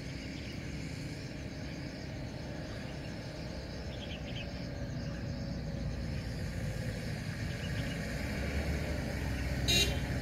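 A motor vehicle's engine running, a steady low rumble that grows louder over the last couple of seconds. Faint bird chirps come about four seconds in, and a brief sharp high sound comes just before the end.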